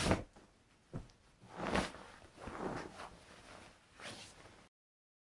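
Bedsheet rustling as a sleeper shifts and turns in bed, in four or five soft swishes, with one short knock about a second in.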